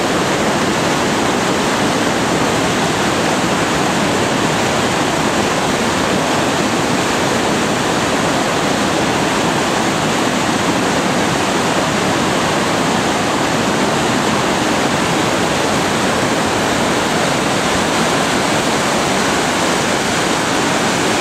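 Steady rush of foaming whitewater churning through a concrete slalom channel.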